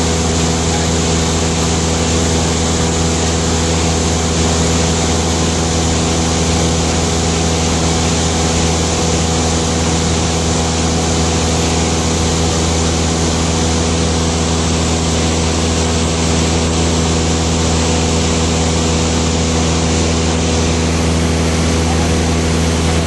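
Light aircraft's engine and propeller droning steadily in level flight, heard inside the cabin, with an even rushing hiss of air over it.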